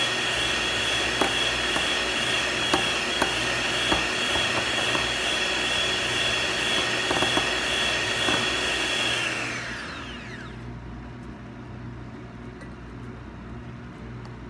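Electric hand mixer whirring steadily as its beaters whip instant coffee, sugar and hot water in a glass bowl, with scattered clicks of the beaters against the glass. About nine and a half seconds in it is switched off and the whine falls away in pitch, leaving only faint clinks.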